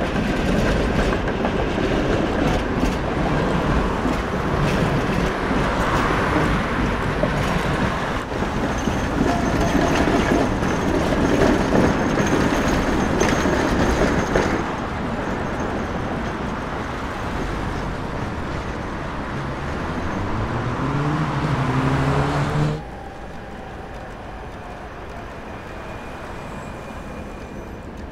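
A city tram running close by, a loud steady rumble of wheels on rails. A few seconds before the end its electric motors give a rising whine as it picks up speed, then the sound cuts off suddenly to a quiet street hum.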